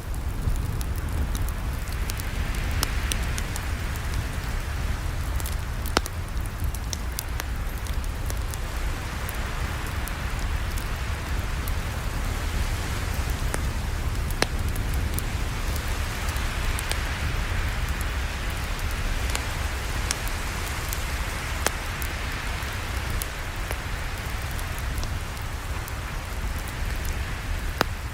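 Campfire crackling: irregular sharp pops and snaps over a steady rushing hiss with a low rumble beneath.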